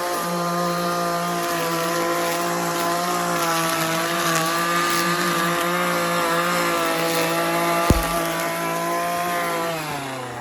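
Vehicle engine running at a steady speed, then slowing with its pitch dropping in the last second. A single sharp click comes about eight seconds in.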